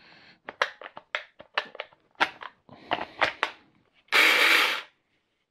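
A 4-inch battery-powered mini chainsaw being handled, with a run of plastic clicks and knocks. About four seconds in, its motor and chain run briefly, for under a second.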